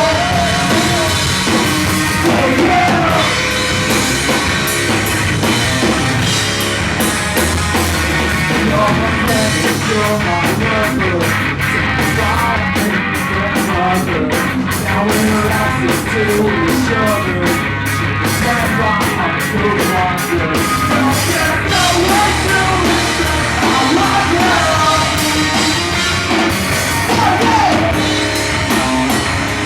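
Live pop punk band playing: distorted electric guitars, bass and a drum kit, with a male lead vocal singing over them.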